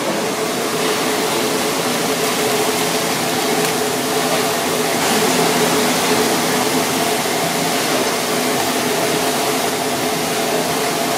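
Steady roar of a commercial kitchen's gas burner and extractor fan, an even rushing noise with a faint low hum running through it.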